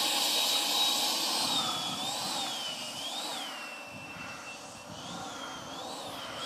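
High-pitched whine of a 120 mm Taiwan Tornado 880 kV electric ducted fan in an RC F18 model jet taxiing on grass. The whine holds steady at first, then its pitch wavers up and down several times and dips lower for a while past the middle.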